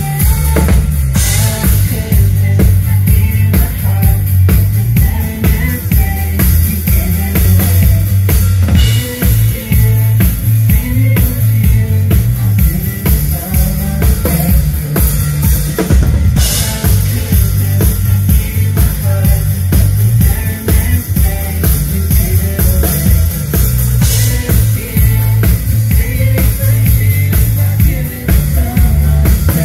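Live band music, amplified through a PA: a drum kit keeps a steady beat over heavy bass.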